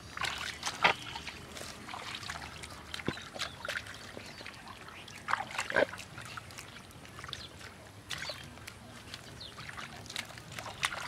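Hands and bare feet squelching and splashing in shallow muddy water while groping in mud holes for fish: irregular short wet clicks, drips and splashes.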